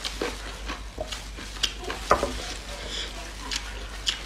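Gloved hands tearing apart a large piece of cooked meat on the bone: plastic gloves crinkling and wet crackling clicks as the meat pulls away, with one sharper click about two seconds in.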